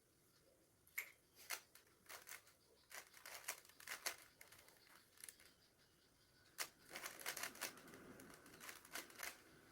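Plastic Rubik's cube layers being twisted by hand: quick clicks and rattles in short runs, with a lull about halfway through and denser clicking near the end.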